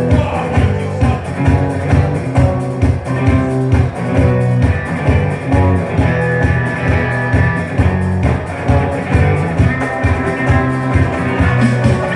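Instrumental rock music with guitar over a steady beat, before the singing comes in.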